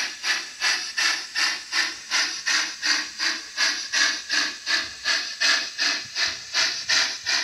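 Simulated steam-locomotive exhaust chuffing from an H0 scale model of the Portuguese CP 110/117 steam locomotive as it runs: a steady beat of nearly three chuffs a second.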